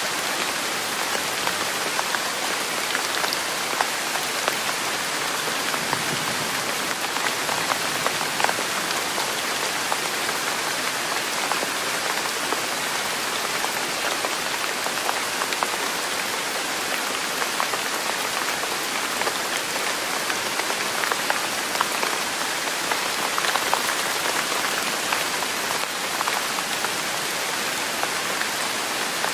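Steady rain falling on a surface: a dense, even hiss scattered with small drop ticks, unchanging throughout.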